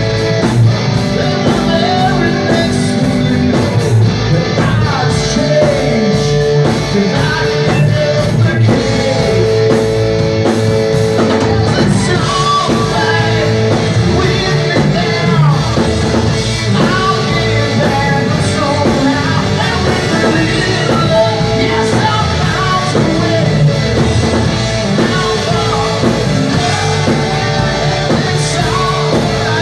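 A rock song with singing and electric guitar playing steadily.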